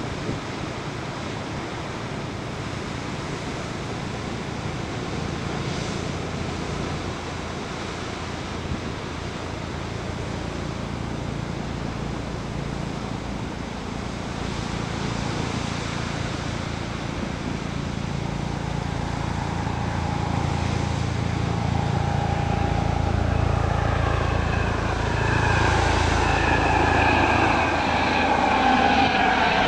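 Ocean surf breaking and washing over rocks, with the drone of a propeller aircraft's engine building from about halfway through. It grows louder toward the end, where its higher whine slides in pitch as it comes near.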